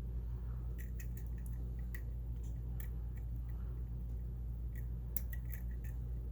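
A lock pick lifting and tapping the serrated pins of a pin-tumbler challenge lock: faint, irregular light clicks, a dozen or so scattered through, over a steady low hum.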